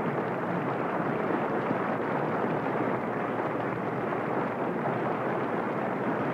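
Studio audience applause, a steady even clatter of many hands clapping, on a band-limited old radio transcription.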